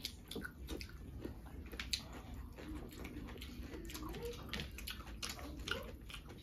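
Close-up eating sounds: wet chewing and lip-smacking, with frequent sharp mouth clicks.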